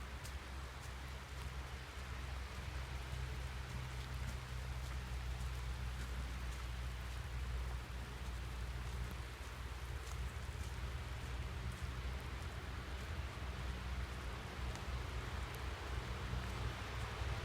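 Mild rain falling in woodland, an even hiss with scattered ticks of single drops, over a steady low rumble.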